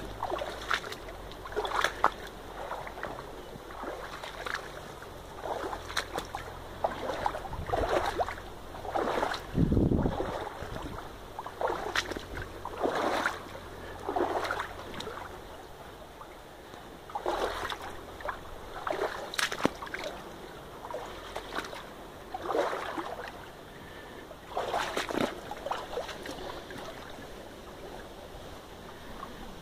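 Splashing steps wading through a shallow, running river, coming irregularly every second or two over the steady rush of the stream, with a low thump about ten seconds in.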